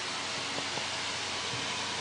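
Electric fan running steadily, an even rush of moving air, set up to speed the drying of fresh spray paint.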